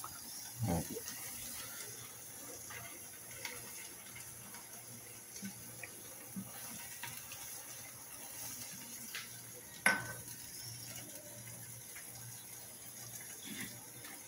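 Scattered light clinks and knocks of metal pots, a pan lid and utensils, with one sharper clink about ten seconds in, over a steady faint hiss.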